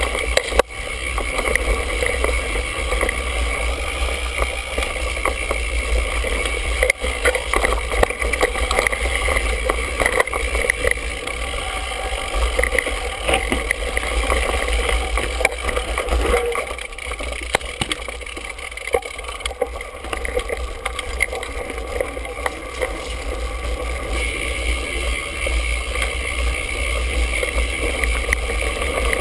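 Mountain bike ridden fast over a dirt singletrack, heard from a GoPro on the handlebar: steady wind and rolling rumble with frequent clicks and knocks as the bike rattles over bumps.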